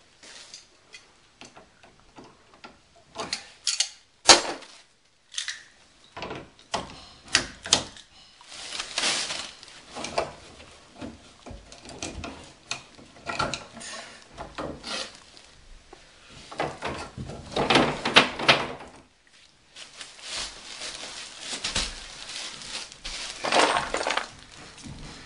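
Irregular knocks, clicks and clinks of hand tools working on a plumbing fitting in an open wall cavity, broken by longer stretches of scraping and rustling handling noise.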